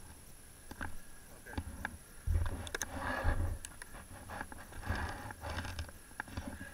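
A snowboarder sitting in snow shifting his board and body: snow and clothing scraping and rustling close to a body-worn camera, with low rumbling handling noise and a few small knocks. The scraping swells twice, about two seconds in and again about five seconds in.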